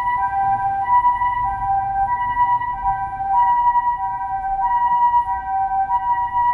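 Japanese ambulance siren sounding its two-tone hi-lo call, a higher and a lower tone taking turns about every two-thirds of a second, loud and steady.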